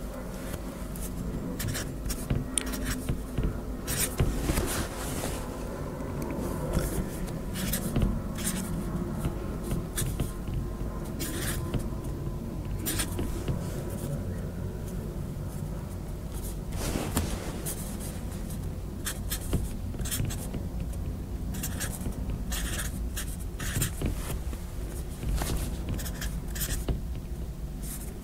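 Marker pen writing digits by hand, a quick irregular run of short scratchy strokes, over a steady low room hum.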